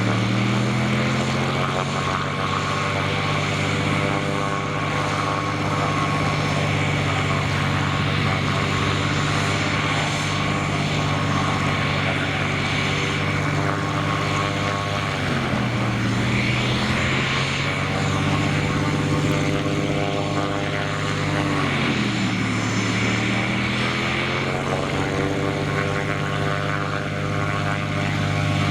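Aircraft engine running at the airfield: a steady, loud, pitched engine drone that climbs near the start. Twice in the second half its pitch sags and climbs back, and it falls again near the end.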